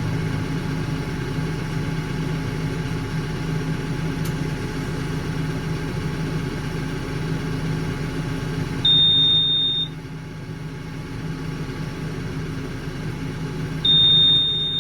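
A heavy vehicle engine idling steadily, with two loud, high electronic beeps about five seconds apart, each lasting about a second.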